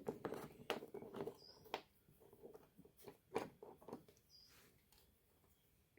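Faint scattered clicks and taps of hands handling wires and a soldering iron at a small cord terminal, dying away after about four and a half seconds.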